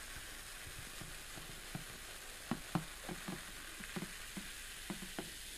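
Portello soda being poured from a glass bottle into a glass, fizzing as a thick head of foam rises. Faint, with small irregular pops and crackles of bursting bubbles.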